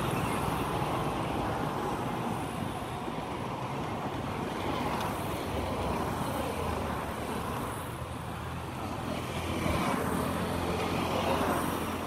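Road traffic going past close by: cars and motorcycles driving along a dirt road, a steady mix of engines and tyre noise.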